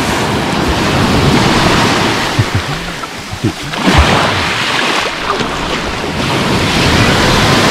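Small waves breaking and washing up a pebble beach, surging in and draining back through the shallows; the wash eases off and comes up again about four seconds in.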